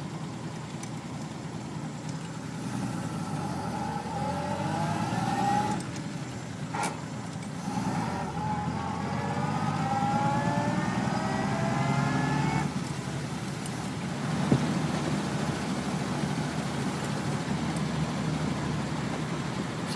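Willys-Knight sleeve-valve engine and drivetrain pulling the car along, the whine rising in pitch twice as it accelerates through the gears, with a gear change and a click in between. After that it runs steadily at cruising speed.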